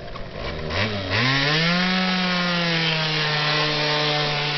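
Aprilia SR50 scooter's tuned two-stroke engine (Dellorto 21 mm carburettor, stock exhaust) revved up hard about a second in, the pitch rising and then held steady at high revs.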